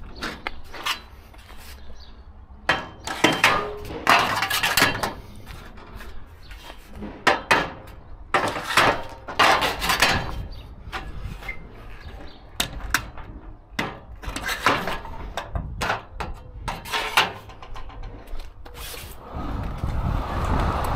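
Irregular metal clanks, knocks and rattles as the buckles and straps along the bottom of a curtainsider trailer's side curtain are unhooked from the side rail and the curtain is pulled open. Near the end a steady rushing rumble comes in.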